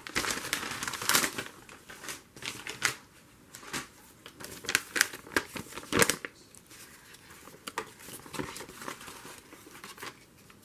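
Paper rustling and crinkling as a printed magazine page is picked up, handled and laid flat, with a few sharper crackles, the loudest about a second in and about six seconds in.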